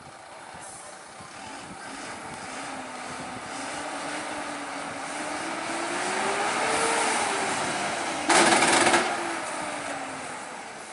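A truck engine drawing closer and louder, its engine note rising and then falling, with a short loud hiss-like blast near the end.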